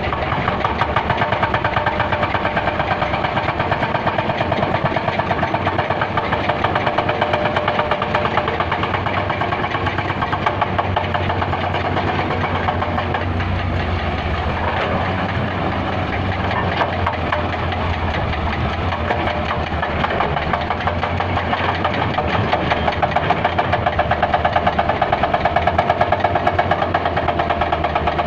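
Heavy diesel engine running steadily with a fast, even pulsing beat, growing a little louder near the end.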